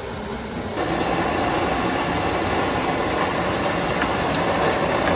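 Busy street noise with vehicle engines running. It gets abruptly louder about a second in.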